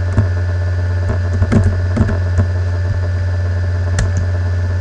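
Steady low electrical hum with hiss from the recording setup, with a few scattered short clicks of a computer keyboard and mouse being worked.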